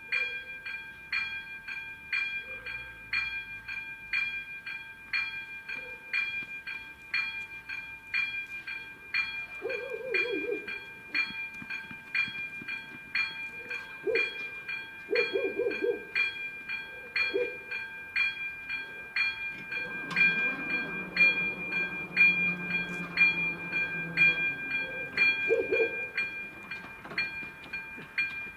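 Electronic level-crossing warning bell ringing in a steady rapid pattern, about two dings a second. Short low hoots sound several times in the middle, and a lower hum and rumble comes in for a few seconds about two-thirds of the way through.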